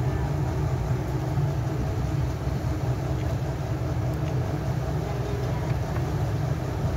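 A steady low mechanical hum with no change in level.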